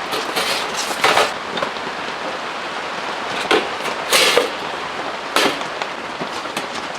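Heavy rain falling steadily on a tent, with about half a dozen louder sharp taps at irregular intervals.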